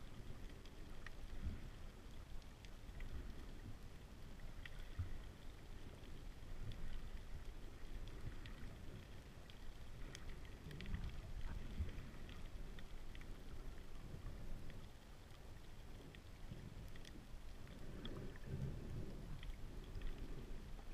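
Muffled underwater sound picked up by a submerged camera: a low rumble of moving water that swells and eases, with scattered faint clicks and crackles.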